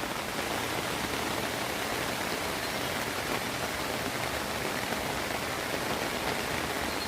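Steady rain falling, an even continuous patter.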